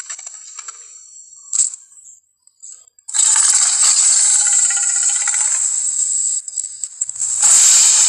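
Film dinosaur roar sound effects, harsh and hissy with little bass: a long roar of about three seconds, then a second roar starting near the end.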